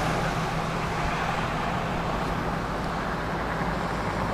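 Steady hiss of road and wind noise from a moving Honda Grom, with its small single-cylinder engine running faintly underneath and dropping away about a second in.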